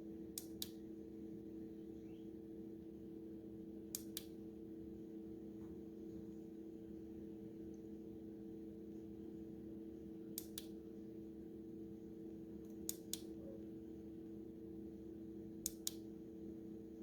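Five sharp double clicks, each pair a fraction of a second apart, at irregular intervals over a steady low electrical hum.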